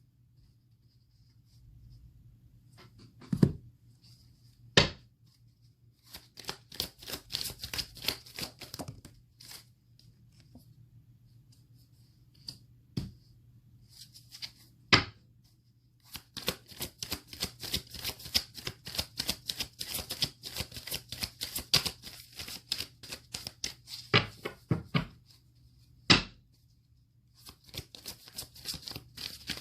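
A deck of tarot cards being shuffled by hand: long runs of rapid, crisp flicking clicks, broken by a few sharp single knocks.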